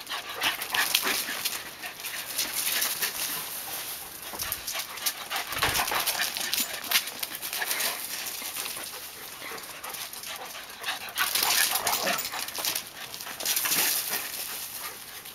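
A Puli and a larger black dog playing chase on gravel: dog play noises over many quick scuffs and crunches of running paws on the gravel, louder in spells near the end.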